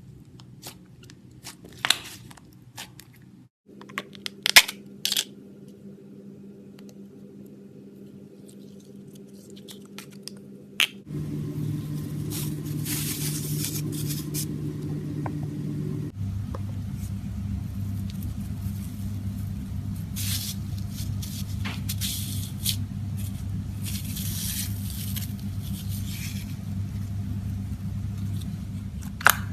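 Gold foil slime being mixed, stretched and pressed by hand, giving sticky crackles, sharp clicks and squishes. A steady low hum runs underneath, and it changes a few times.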